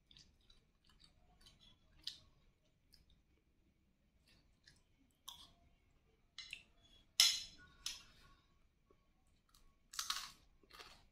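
Close mouth sounds of someone eating fried rice: chewing with small clicks of a metal spoon against the plate, and two louder short crunching bursts, one a little past the middle and one near the end.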